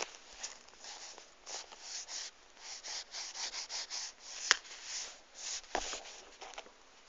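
Rustling and rubbing noises in irregular bursts, with one sharp click about four and a half seconds in.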